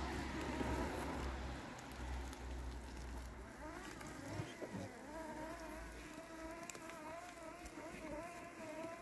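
Landxcape LX790 robotic mower's brushless electric motors whining as it cuts through tall wet grass and weeds, the pitch wavering as the load changes; the whine stands out more clearly from about halfway through.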